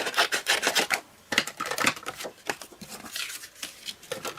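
Cardstock being cut to trim away the excess: a run of quick scratchy cutting strokes, a short pause about a second in, then more irregular strokes.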